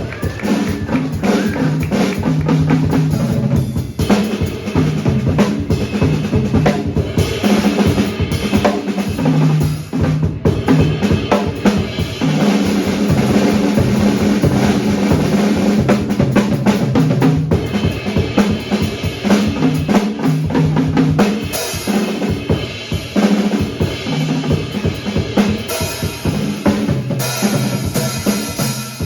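Jazz drum kit played busily and loudly, with kick drum, snare and rimshot accents, over low sustained notes that shift in pitch beneath it.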